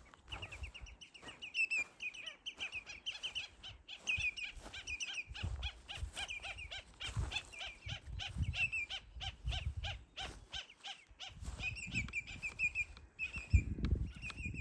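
Birds calling in a fast, continuous run of short chirps, with a lower string of evenly spaced notes joining in the middle. Low rumbles sit underneath and are strongest near the end.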